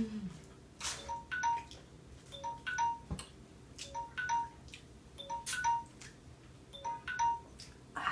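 Phone timer alarm going off: the same short group of bright electronic chime notes repeating about every one and a half seconds, five times, signalling that the contest's time is up. A single low thump about three seconds in.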